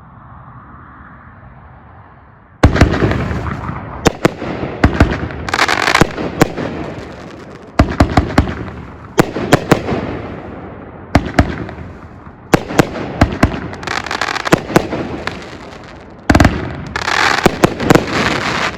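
A Super Fireworks 'Locked and Loaded' 500-gram fireworks cake firing. It starts suddenly about two and a half seconds in, then goes off in repeated volleys of sharp bangs, each cluster trailing off before the next a second or two later.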